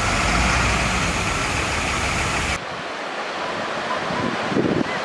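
Heavy diesel vehicle engine running with a steady low rumble. About two and a half seconds in it cuts off abruptly and gives way to a quieter, steady hiss.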